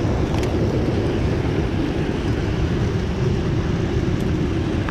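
Steady low rushing of fast-flowing river water, with a faint click about half a second in.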